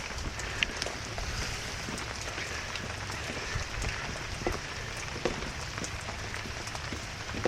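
Heavy, steady rain falling, with a few faint sharp ticks scattered through it.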